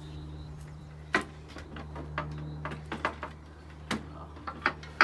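Scattered light knocks and clicks of hands pressing and shifting on the white-painted mahogany slats of a garden bench, the sharpest about a second in and again just before four seconds, over a steady low hum.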